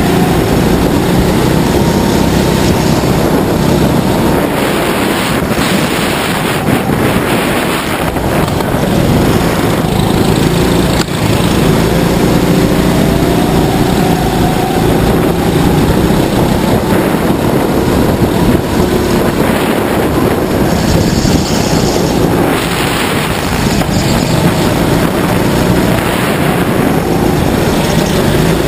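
Go-kart's small engine running hard, its pitch repeatedly climbing as it accelerates, heard from the kart itself with wind rushing over the microphone.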